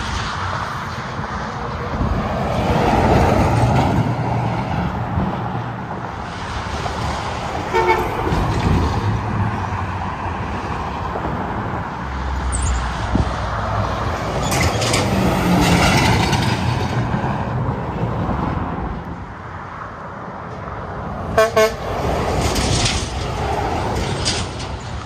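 Interstate traffic with trucks passing, their engine and tyre noise swelling and fading with each pass. There is a short horn toot about eight seconds in and two quick horn blasts near the end.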